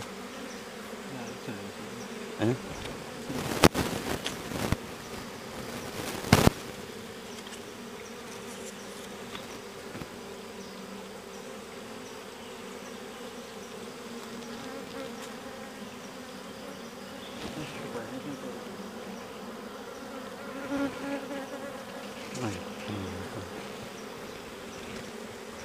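Steady buzzing hum of a large colony of Asian honeybees (Apis cerana) swarming over a coconut tree trunk, the colony almost entirely out of its nest. Two sharp knocks, at about four and six seconds in, stand out above the hum.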